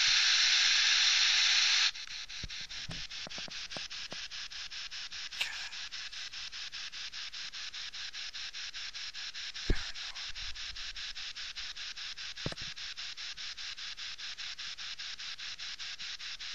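Loud static hiss that cuts off sharply about two seconds in to a quieter static hiss pulsing in a rapid, even rhythm, with a few faint clicks, fading out near the end.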